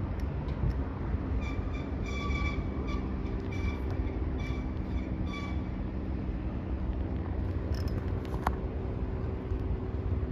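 Leonardo AW109SP twin-turbine helicopter heard from a distance as it climbs away: a steady low rumble with a steady drone of engine tones. Short high tones come and go during the first half.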